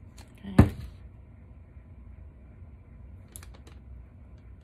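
A single loud knock about half a second in as the UV resin squeeze bottle is set down on the table, then a few light clicks from hard resin pieces being handled and fitted together.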